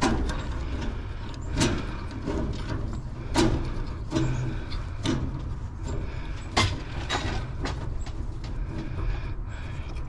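Several sharp knocks and clicks, about five in all, over a steady low rumble.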